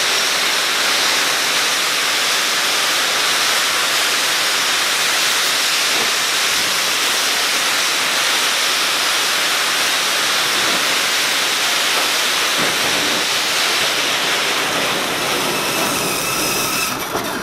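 Cold spark fountains (16 cold fireworks on a firing machine) spraying all at once with a loud, steady hiss that fades away near the end as they burn out.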